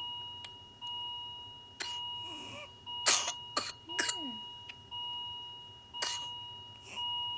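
Infant with severe whooping cough (pertussis) in a coughing fit: a run of short, weak coughs, the loudest about three seconds in, with squeaky stridor on the breaths between them. A steady electronic beep tone sounds behind it and breaks off about once a second.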